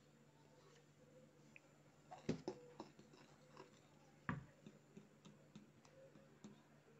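Metal spoon stirring flour into a batter in a bowl: faint scraping with light ticks of the spoon against the bowl, and two louder knocks about two and four seconds in.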